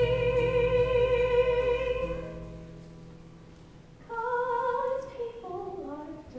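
A woman singing solo: she holds one long note with vibrato over instrumental accompaniment. The accompaniment stops after about two seconds and the note fades. After a short pause she sings a brief phrase that steps down in pitch.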